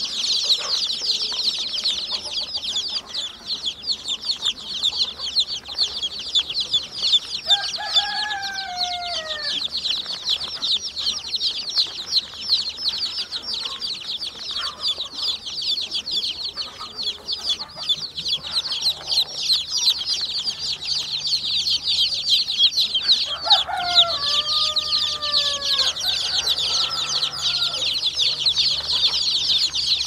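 A large crowd of newly hatched chicks peeping nonstop, dozens of high, shrill cheeps overlapping into a continuous chorus. A lower, drawn call stands out twice, about eight seconds in and again about twenty-four seconds in.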